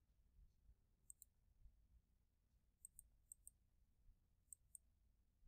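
Near silence with faint computer mouse clicks: a double click about a second in, two more in quick succession around three seconds, and another double click near the end.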